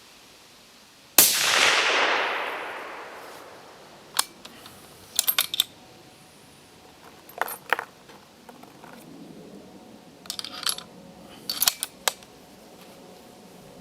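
A single shot from a suppressed 6.5x55 Carl Gustav bolt-action rifle about a second in, its report rolling away over about two seconds. Several short groups of metallic clicks and clacks follow as the bolt is worked.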